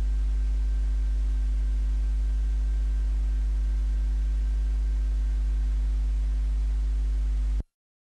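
Steady low electrical mains hum with a faint hiss over it, cutting off suddenly near the end into dead silence.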